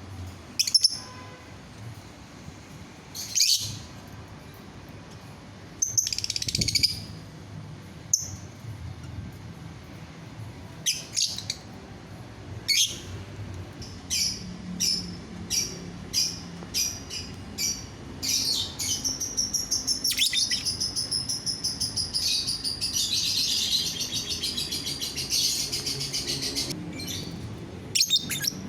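Lovebird singing: scattered sharp, high chirps, then a run of chirps at about two a second, building into a long unbroken trilling warble for about eight seconds, with a last chirp or two near the end.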